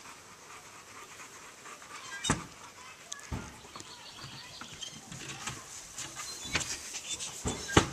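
Boxer puppy panting, hot from running, with irregular rustling and a few sharper snaps as it mouths the grass.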